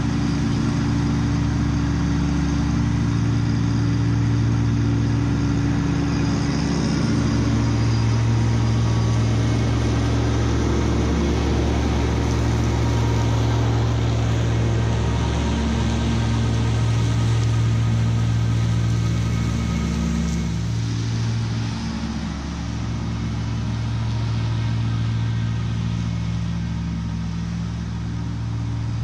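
Kubota B2601 compact tractor's three-cylinder diesel engine running steadily at working speed while mowing tall grass with its PTO-driven Land Pride FDR1660 finish mower.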